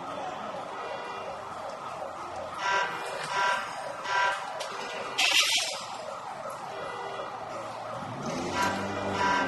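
Emergency sirens and car alarms wailing and warbling together. A short burst of hiss about halfway through is the loudest moment.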